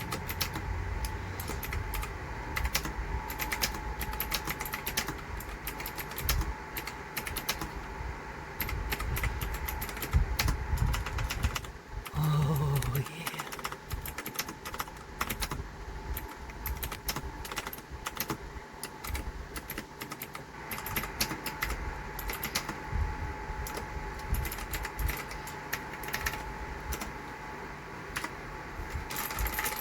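Typing on an RK Royal Kludge S108 mechanical keyboard with clicky blue switches: a fast, irregular stream of keystrokes.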